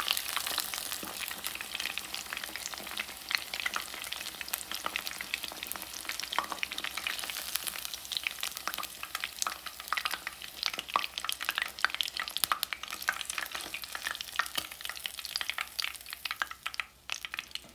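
Battered tilapia fillets frying in hot oil, a dense crackling sizzle, as tongs lift the cooked pieces out of the pan. The crackle thins out near the end as the last piece leaves the oil.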